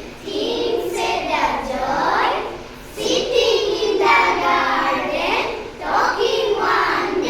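A group of children reciting a poem together in a sing-song chant.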